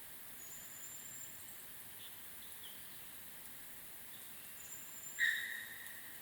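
Faint outdoor forest ambience with birds calling: thin, high whistled notes and small chirps, then one louder, clear call about five seconds in that fades over about a second.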